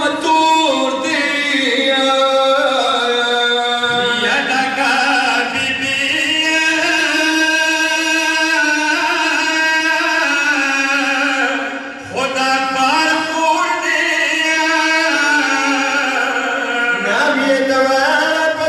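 Male voices chanting a Pashto noha, a mournful Shia lament, into microphones in long, wavering melodic lines, with a short pause about twelve seconds in before the chant resumes.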